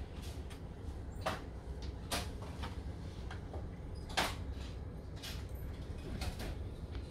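Shop room tone: a steady low hum under a scattered series of short clicks and knocks, roughly one a second, the sharpest about four seconds in.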